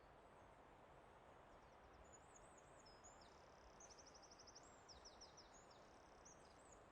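Faint songbird singing a varied song of quick trills and looping high notes, starting about a second and a half in and stopping near the end, over a faint steady hiss of forest ambience.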